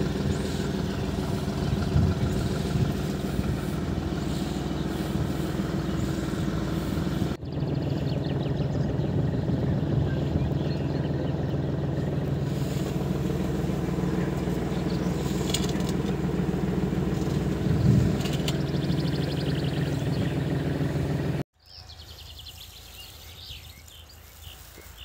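Massey Ferguson 3635GE tractor engine running steadily under load while pulling a raspberry transplanter. Near the end it cuts off, leaving a quiet open-air background with a few bird chirps.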